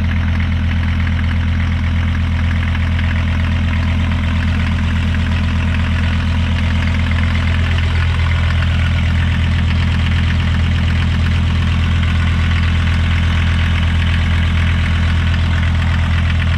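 Mercedes-Benz OM617 five-cylinder diesel engine idling steadily in a Mercedes-Benz 407 van.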